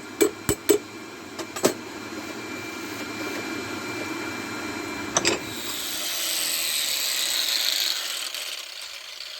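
Metalworking in a blacksmith's workshop: several sharp knocks of metal in the first couple of seconds and one more about five seconds in, over a steady hum. A hissing noise then swells and fades away.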